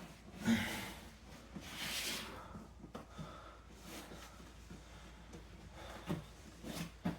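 A person's heavy breathing during exercise: two loud, rough exhales in the first two seconds, then quieter breaths and a few soft knocks near the end.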